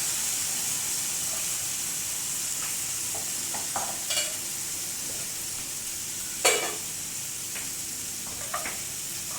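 Vegetables frying in hot oil in a pan, a steady sizzle with a few short knocks and scrapes of a utensil stirring them, the loudest about six and a half seconds in.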